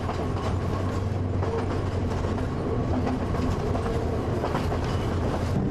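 Passenger train running on the rails, a steady low rumble with faint irregular clicks of the wheels over the track.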